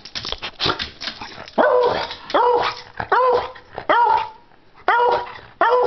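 Beagle barking over and over, about one bark every second, each bark short and rising sharply in pitch before levelling off: demand barking for a treat. Scuffling clicks come before the barks start.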